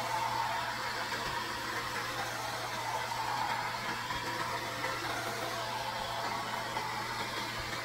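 Steady blowing noise with a low, even hum from a running appliance, unbroken throughout.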